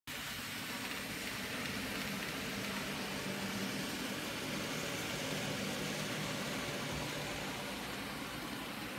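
N scale Atlas ES44 model diesel locomotives running along the layout track, their small electric motors and wheels giving a steady whir and hiss.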